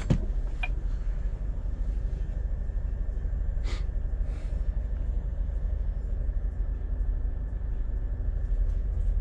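Scania truck's engine and road rumble heard from inside the cab, a steady low drone. There are a couple of short clicks at the start and a brief hiss about four seconds in.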